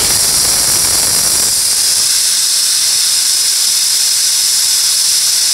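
Compressed air rushing out of an air compressor's tank through an opened hose fitting: a loud, steady hiss that starts abruptly. The tank is being bled down from about 120 psi so that the pressure switch will cut the compressor back in.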